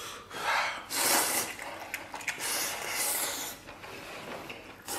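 A person slurping noodles, several drawn-out wet slurps in quick succession.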